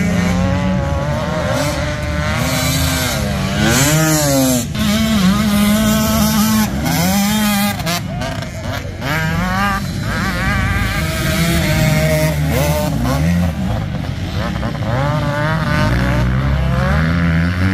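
Several racing motorcycles' engines revving, overlapping one another, the pitch climbing and then dropping again and again as the bikes accelerate and change gear.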